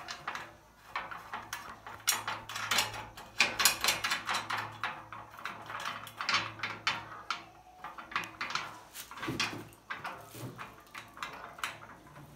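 Bolts being fitted and tightened by hand into the sheet-metal rails of an industrial sewing machine stand: irregular metallic clicks, taps and scrapes of metal parts being handled.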